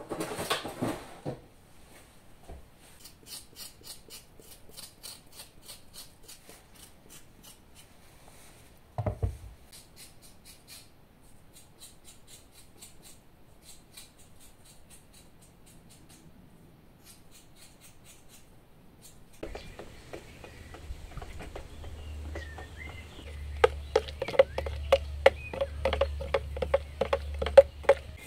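A kitchen drawer pulled open, followed by light clinks and taps of kitchen utensils and a low thud about nine seconds in. In the last few seconds a stick stirring paint in a plastic bucket knocks repeatedly against the bucket.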